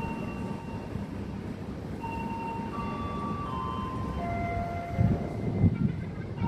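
A slow tune of clear, chime-like held notes stepping between pitches over a steady low rumble, with a few louder low thumps about five seconds in.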